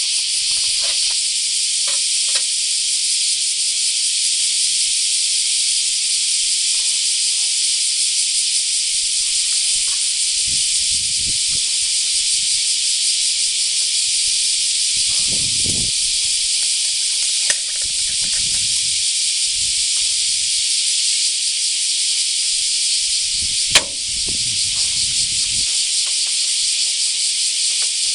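A steady, loud hiss of pressurised spray, typical of a coating being sprayed onto a roof. It is broken only by a few low thuds around the middle and one sharp click about three-quarters of the way through.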